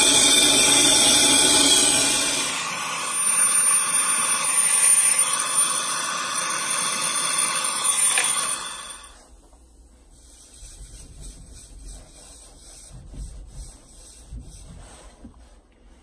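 Brazing torch flame hissing steadily against a copper refrigerant line joint as the line is brazed back onto the evaporator coil. The flame goes out about nine seconds in, leaving only faint handling sounds.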